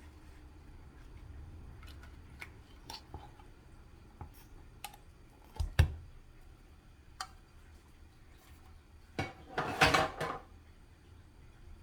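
Dishes and cutlery clinking and clattering in a kitchen: scattered light clicks, one sharp knock about halfway through, and a short burst of clatter near the end.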